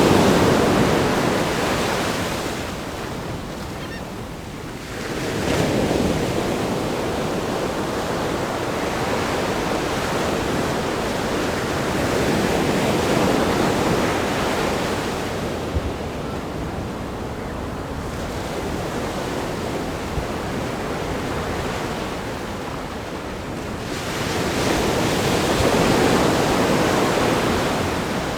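Ocean surf breaking on a rock groin and sandy beach: waves surge in and wash back, the sound swelling and easing every several seconds, loudest at the start, about five seconds in, around thirteen seconds in and near the end.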